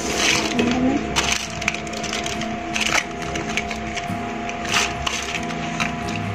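Plastic toy cooking pieces clicking and rattling as a child handles them, with a few short, sharper clacks.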